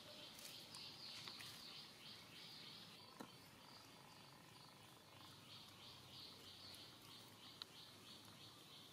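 Faint outdoor ambience: high-pitched chirping that pulses evenly about three times a second, with a few soft clicks.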